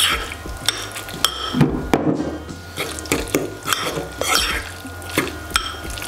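A utensil stirring salted canned tuna in a bowl, with irregular clinks and scrapes against the bowl.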